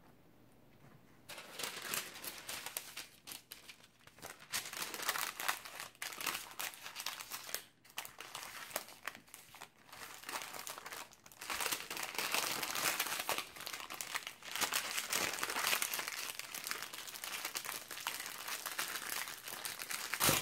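Parchment paper crinkling and rustling as hands roll a tortilla roll up in the sheet and fold it closed. It starts about a second in and goes on with brief pauses.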